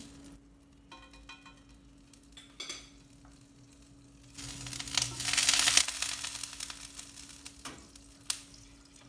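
Food frying in a non-stick frying pan on a gas stove. There are a few light utensil clicks, then a loud burst of sizzling about four seconds in that fades over the next few seconds. A steady low hum runs underneath.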